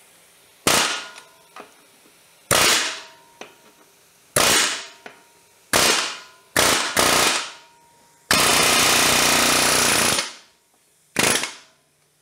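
Pneumatic air hammer driving a seized swing arm bolt out through a Honda CRF450R's engine cases, metal hammering on metal in short bursts every second or two. Near the end it runs for a longer stretch of about two seconds. The bolt is hung up in the engine cases and has to be forced out.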